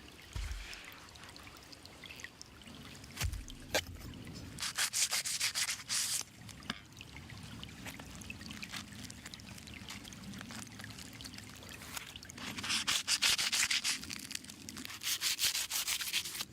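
Rapid, rhythmic scraping strokes in two runs, a short one about four seconds in and a longer, louder one in the second half, with a few sharp clicks in between.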